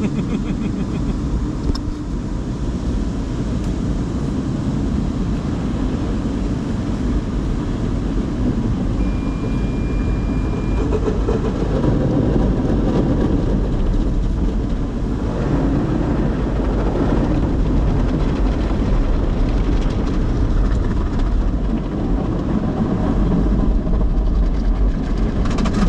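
Automatic tunnel car wash working over the car, heard from inside the cabin: a steady, dense rumble of water spray and wash equipment on the body, growing a little louder about halfway through.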